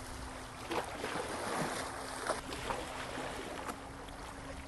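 Seawater sloshing and splashing, with a cluster of short splashes from about a second in, over wind buffeting the microphone and a faint steady hum.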